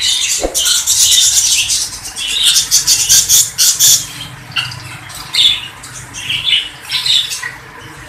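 Many caged birds chirping and squawking at once, a dense high-pitched chatter that is loudest in the first half and thins out toward the end.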